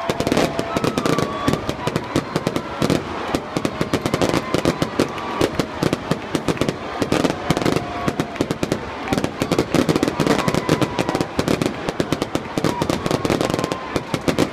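Fireworks finale: a dense, unbroken barrage of bangs and crackles, many per second.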